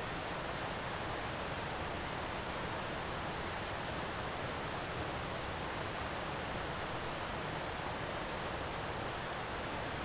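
Steady, even rushing outdoor background noise with no distinct calls or other events.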